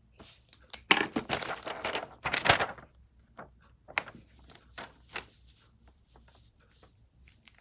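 A sheet of drawing paper rustling as it is picked up and handled, with a burst of rustling from about one to three seconds in, then a few light taps and rustles.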